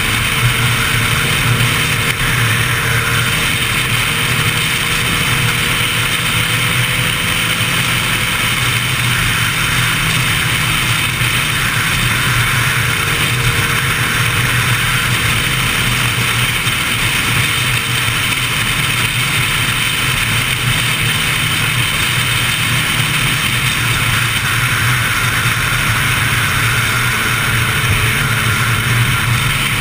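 Sport motorcycle engine running steadily at highway speed, heard from a camera mounted on the moving bike, with a constant rush of wind and road noise over the engine.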